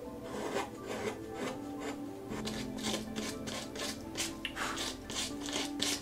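Small hand carving gouge shaving white pine in quick, repeated scraping strokes, a few per second, as the pine-cone scales are shaped.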